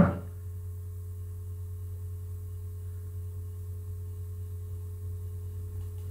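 Steady low hum with a faint, steady higher tone over it, unchanging throughout: the background hum of the recording with no one speaking.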